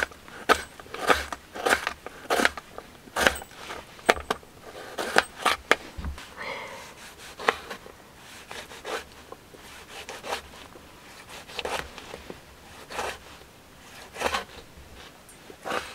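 Kitchen knife chopping onion and then tomato on a plastic cutting board: sharp knocks of the blade striking the board. They come in quick runs in the first few seconds, then roughly one every second or so.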